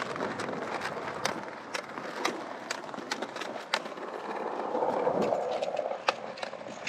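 Skateboard wheels rolling on concrete, a steady rough roll with a string of sharp clicks, swelling louder for a second or so past the middle.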